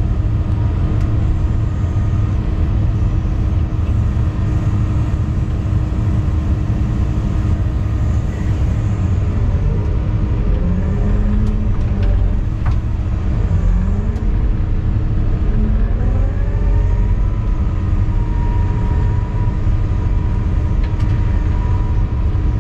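Wheeled excavator's diesel engine running with a loud, steady rumble, heard from inside the cab as the machine drives along the road. Faint whining tones slide up and down in pitch about halfway through.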